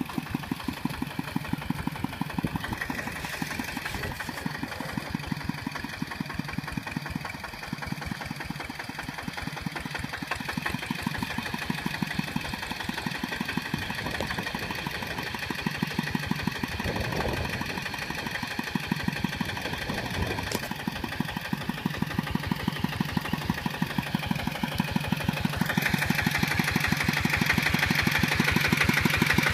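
Kubota RT140 Plus walking tractor's single-cylinder diesel engine running with a steady, rapid beat as the tractor works through paddy mud. It grows louder near the end.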